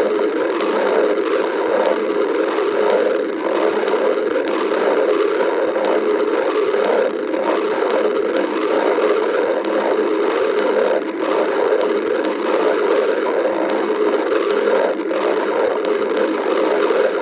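Human stomach growling in a steady, unbroken stream of low rumbling.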